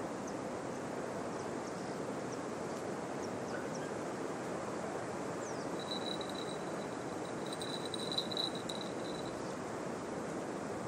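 Steady rushing outdoor background noise, with several short, high, falling bird chirps and a high, even trill lasting about three seconds from about six seconds in.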